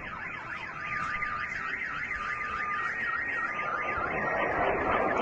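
Car alarm wailing in a rapid up-and-down warble about four times a second, with a steady electronic tone sounding over it partway through. A rushing noise grows louder toward the end.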